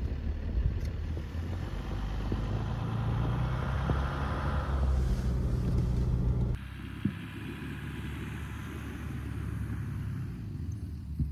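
A 2021 Jeep Gladiator's 3.0-litre diesel V6 and road noise, a steady low hum, while the truck is driven on snowy roads. About two-thirds of the way through, the sound drops abruptly to a quieter, thinner drive noise.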